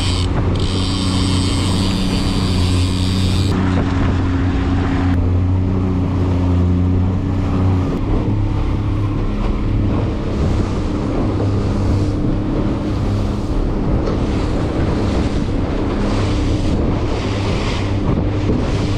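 Boat engine running steadily under way, with wind buffeting the microphone and the rush of water against the hull.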